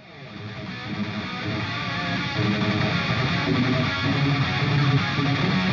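Background music led by guitar, fading in over the first couple of seconds and then holding steady.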